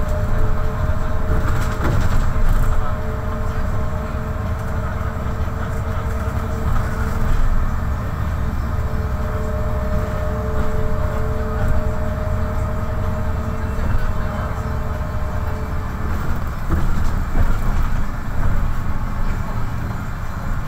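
A MAN NL263 city bus driving along, heard from inside near the front: a steady low rumble of engine and road noise, with a steady two-note whine on top that fades out about three-quarters of the way through.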